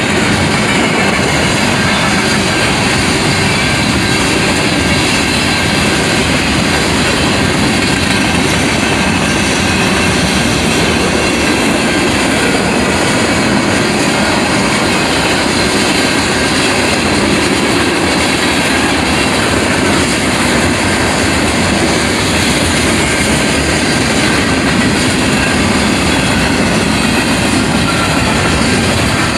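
Freight train's covered hopper and tank cars rolling past at a grade crossing: a loud, steady rumble of steel wheels running on the rails.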